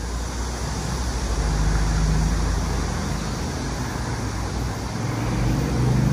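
City street traffic: cars driving past with engine rumble and tyre noise, swelling about a second and a half in and again near the end.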